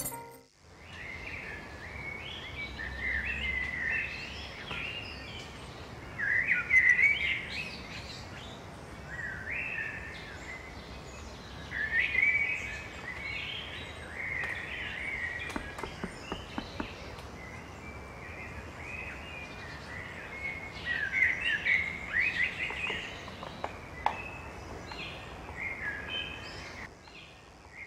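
Small birds chirping in repeated short phrases, several louder bursts among quieter ones, over a faint steady background hiss.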